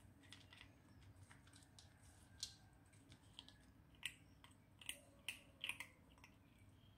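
Kitten chewing dry kibble from a plastic bowl: faint, irregular crisp crunches and clicks, about half a dozen of them, most in the second half.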